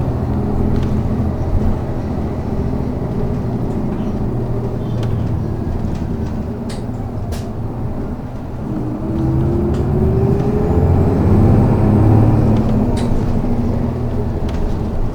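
City bus engine running, then rising in pitch and getting louder about nine seconds in as the bus accelerates, heard from inside the bus. A few sharp rattling clicks are heard in the middle.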